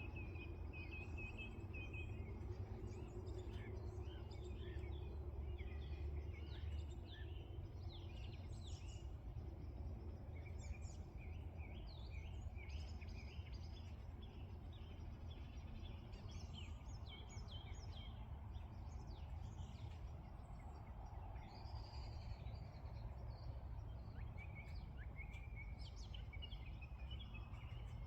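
Several small birds chirping and singing, many short calls and trills overlapping throughout, over a steady low rumble.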